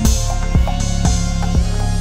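Electronic background music with a steady beat of about two strikes a second over a sustained bass line.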